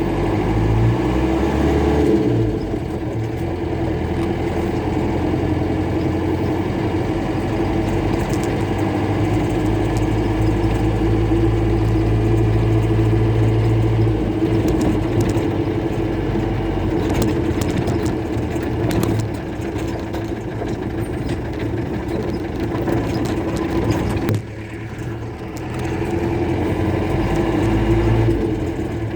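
Mercedes-Benz OM-314 four-cylinder diesel in a Toyota Bandeirante running steadily with a light rumble.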